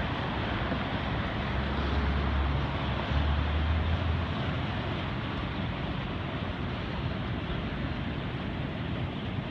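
Steady outdoor noise of wind and distant city traffic. A low rumble of wind buffeting the microphone comes in from about one and a half to four seconds in.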